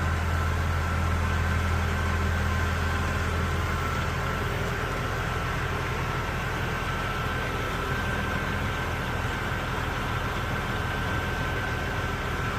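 Diesel engine of heavy construction equipment running steadily at constant speed, with a steady higher whine over the low hum.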